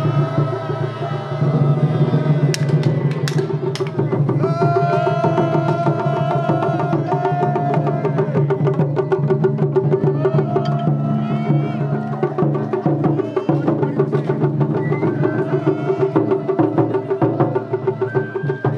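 Japanese festival hayashi music: dense, rapid taiko drumming with wooden strikes, joined about four seconds in by a bamboo flute playing a melody that bends and trills.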